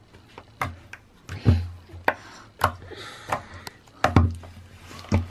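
White snow slime pressed and kneaded by fingertips on a table for ASMR, giving irregular crackling pops and clicks, a few a second, some with a soft thud.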